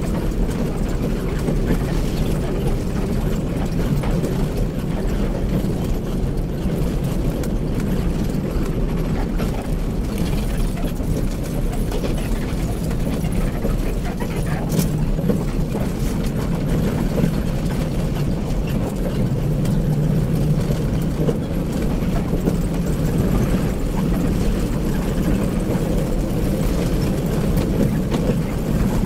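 Steady low drone of a bus's engine and tyres on the road, heard from inside the cabin while driving.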